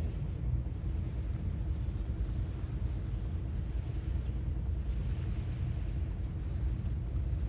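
Sea waves washing ashore over a steady low rumble, with a soft swell of surf hiss about five seconds in.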